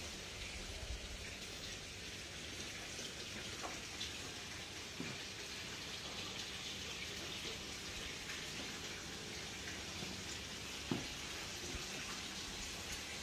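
Running water splashing steadily, with a few faint clicks.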